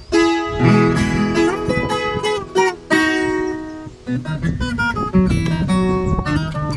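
Instrumental break of a sertanejo (caipira) song: acoustic guitars playing a plucked melody, with no singing.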